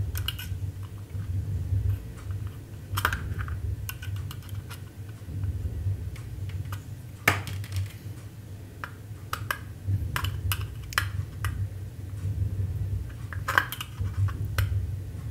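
A screwdriver clicking and scraping on the screw terminals of a plastic lamp holder as the wires are screwed down, with irregular sharp taps from handling the parts. A steady low hum runs underneath.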